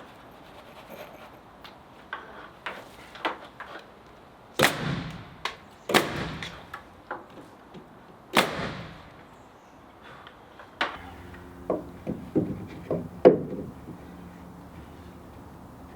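A run of irregular knocks and bangs, three of them loud with a short ringing tail. From about eleven seconds in, a faint steady low hum runs under further knocks.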